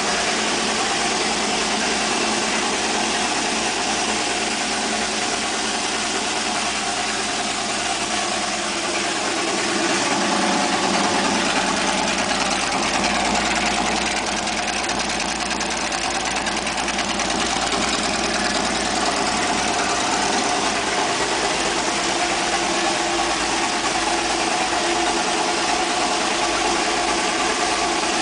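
An engine running steadily at idle, a little louder for a few seconds about ten seconds in.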